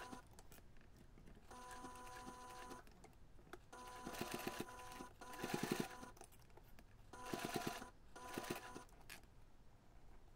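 Domestic electric sewing machine stitching in several short runs of a second or two, stopping and starting again between them; each run is a steady motor whine with the needle's fast regular strokes, faint.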